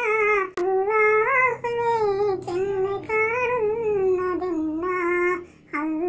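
A single high-pitched voice sings a Malayalam Nabidina devotional song in ornamented melodic phrases, with short breaths between lines about half a second in and near the end.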